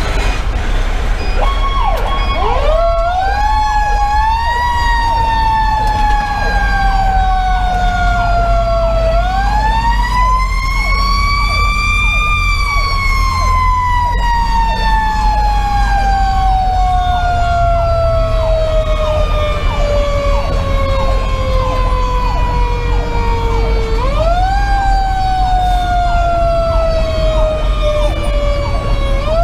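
Federal Q2B mechanical siren on a fire engine, winding up and coasting down in long rising and falling wails. It is pushed back up about nine seconds in and again near twenty-four seconds. Underneath, a Sho-Me Powercall electronic siren cycles in fast repeated sweeps, over the steady low rumble of the truck's 470 hp Detroit Series 60 diesel.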